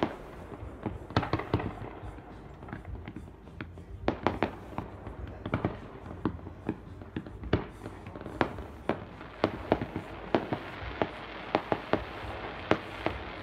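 Fireworks display: an irregular run of sharp bangs and pops as shells burst, often several a second, with a crackling hiss building in the second half.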